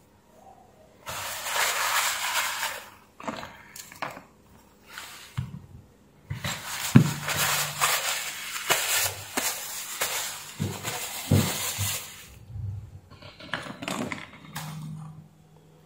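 Crumpled cloth rag rustling and rubbing in two long spells, with scattered knocks and taps as small drill parts are handled on the workbench.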